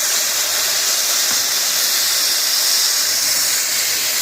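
Olive oil and minced garlic sizzling in a hot cast iron pan over medium-high heat, a steady hiss.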